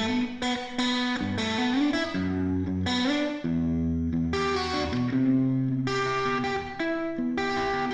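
Background music led by guitar, with a new chord or note struck about every half second to second.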